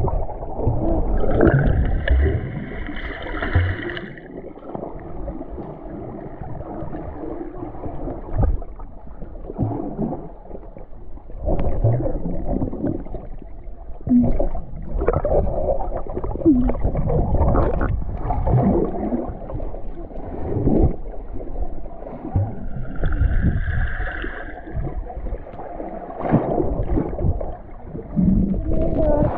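Muffled underwater sound of swimmers: water rushing and bubbling around the camera, with frequent low knocks. Two brighter bubbling gurgles come through, a few seconds in and again about twenty-three seconds in.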